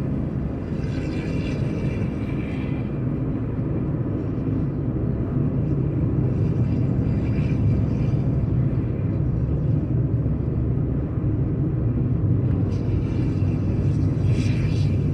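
Diesel engine of a Volkswagen Constellation truck running with a steady low rumble.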